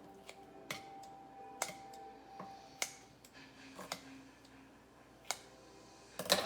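Kitchen scissors snipping raw boneless chicken thighs: sharp, irregular clicks roughly once a second, the loudest near the end.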